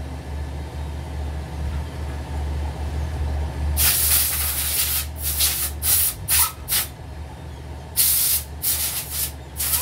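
Pressurised spray hissing in bursts: one about a second long some four seconds in, then four quick short squirts, and after a brief pause four more, over a steady low hum.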